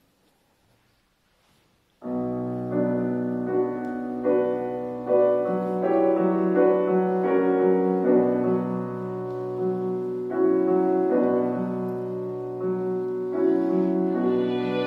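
Grand piano coming in suddenly about two seconds in, playing sustained low bass notes under changing chords. Two violins join near the end.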